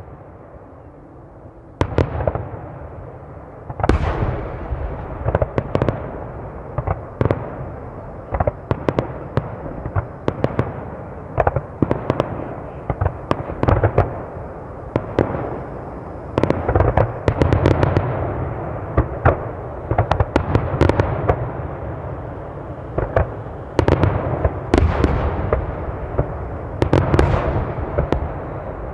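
Aerial firework shells bursting in rapid succession, dozens of sharp bangs and deep booms overlapping with their echoes. After a sparse first couple of seconds the bursts come almost without pause.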